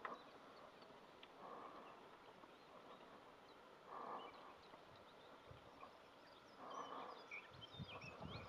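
Faint, breathy grunts from rutting chamois, one puff about every two to three seconds, with faint bird chirps and a few low thuds near the end.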